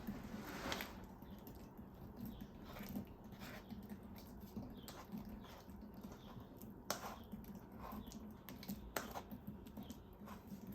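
Faint, scattered light clicks and taps with soft rustling, a few sharper clicks about seven and nine seconds in.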